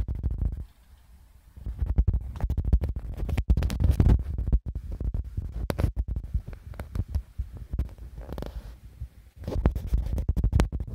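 Handling noise from a phone's microphone rubbing and knocking against clothing: loud scratchy rustling and low thumps, broken by brief near-quiet gaps about a second in and again just after nine seconds.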